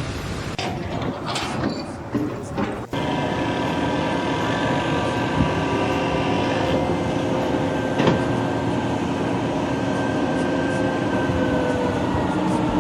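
Heavy machinery running with a steady rumble and several held whining tones. An abrupt cut about three seconds in switches from a rougher noise to this steady sound, and a single knock comes about eight seconds in.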